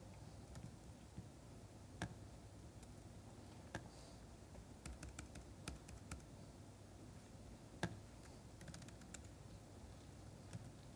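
Faint typing on a laptop keyboard: scattered key clicks, with a louder tap about two seconds in and another near eight seconds, and quick runs of keystrokes in between.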